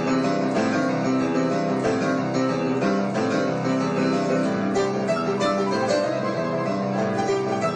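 Instrumental music: plucked strings and keyboard playing a steady run of notes.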